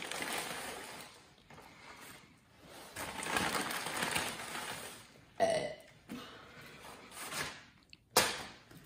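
Paper bag crinkling and rustling as a takeout tray of fries is pulled out onto a table. Past the middle comes a short burp, and near the end a single sharp knock.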